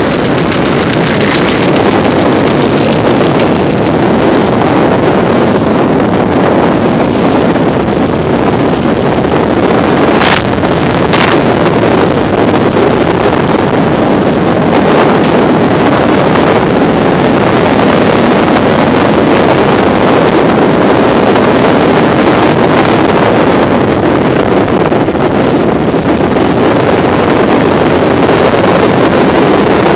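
Motor scooter riding along a road: a steady rush of wind buffeting the microphone over the scooter's running engine.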